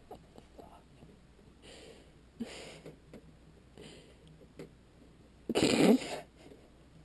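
A person's breathy whispering in short bursts, with one much louder breathy burst about five and a half seconds in.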